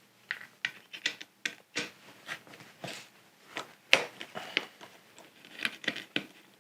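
Irregular light clicks and taps of a tool and small metal parts being worked loose from a disassembled hard disk drive, with the sharpest click about four seconds in.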